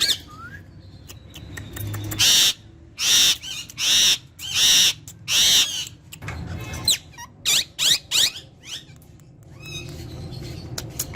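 Ringneck parrot calling: four loud, harsh screeches in quick succession, then a run of short rising chirps and whistles.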